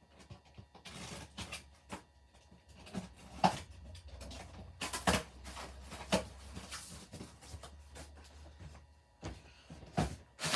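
A cardboard box being opened and the boxed figures inside handled: scattered knocks, taps and rustling of cardboard and packaging, sharpest about a third of the way in and in a cluster around the middle.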